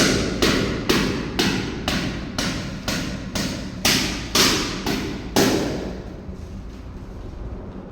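Hammering, about two blows a second and about a dozen strikes, stopping about five and a half seconds in. A faint steady background noise carries on afterwards.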